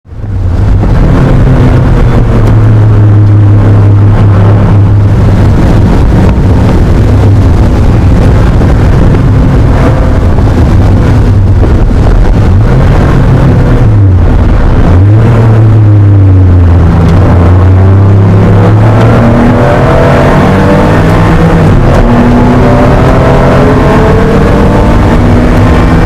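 Air-cooled flat-six engine of a 1980 Porsche 911 SC racing at high revs, heard loud from inside the cabin. Its pitch dips and recovers around halfway through, then climbs steadily near the end.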